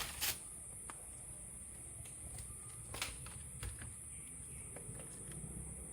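Scattered light clicks and taps from handling a laptop and its small parts, two of them sharper right at the start, over a steady faint high hiss.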